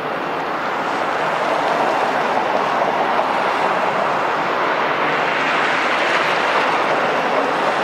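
Jet airliner engine noise as a plane passes: a steady rushing roar that builds gradually, is loudest through the middle and slowly eases off.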